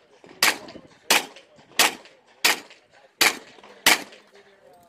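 Handgun fired six times at an even pace, about one shot every two-thirds of a second.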